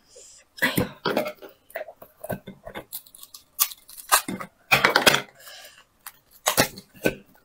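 Close-miked eating sounds: a cooked crustacean's shell being cracked and torn apart by gloved hands and snipped with kitchen scissors. The cracking, tearing and snipping come in irregular sharp bursts.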